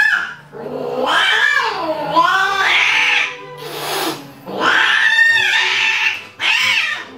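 Domestic cats mating, with a cat yowling in several long, wavering cries that rise and fall in pitch, broken by short pauses.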